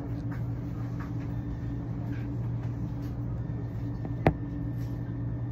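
Steady low hum of a moving vehicle heard from inside, with one sharp click about four seconds in.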